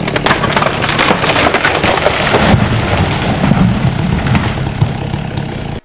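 A big tree crashing down a rocky, wooded slope: dense cracking and snapping of branches over a heavy rumble, loudest around the middle, cutting off suddenly near the end.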